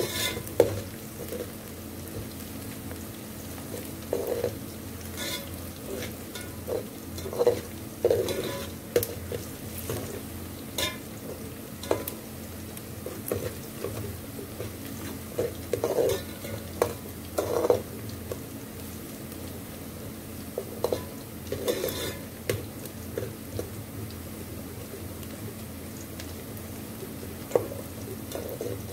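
Sliced onions frying in oil in an aluminium pot as they brown, with a steady sizzle. A spoon stirs them, scraping and knocking against the pot at irregular moments.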